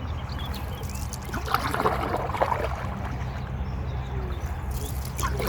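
Canoe paddle strokes: water trickling and splashing off the blade, over a steady low rumble.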